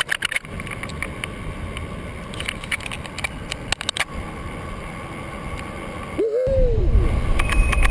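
Fat-tire bike rolling across beach sand, a steady noise of the tyres with many small clicks and rattles from the bike. About six seconds in, the sound cuts to a heavy low rumble of wind on the microphone, with a brief vocal sound.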